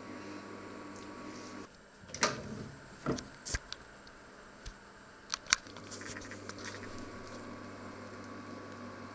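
Steady electrical hum of kitchen appliances, broken off about two seconds in. Next comes a run of sharp clicks and clattering knocks of kitchenware being handled, the loudest a little past the middle. The hum then resumes.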